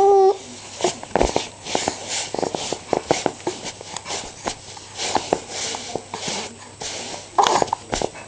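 Baby hiccuping: short, sharp, irregularly spaced hiccups, with a brief pitched baby vocal sound right at the start and another about seven and a half seconds in.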